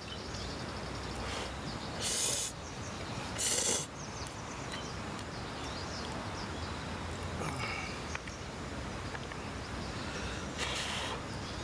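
A man slurping and eating instant yakisoba noodles with chopsticks: three short, loud slurps, about two seconds in, about three and a half seconds in and near the end, over a steady low background noise.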